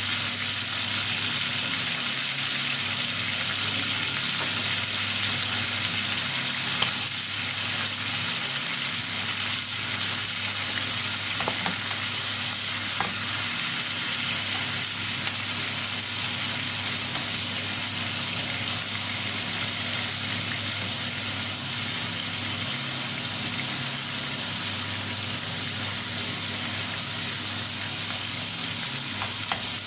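Cubes of raw pork sizzling steadily in hot oil in a nonstick frying pan, with a few light clicks of a metal spoon stirring the meat.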